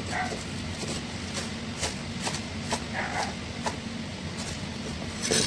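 Kitchen knife chopping green onions on a wooden cutting board: irregular knocks of the blade on the board, quickening into a short run near the end, over a steady low hum.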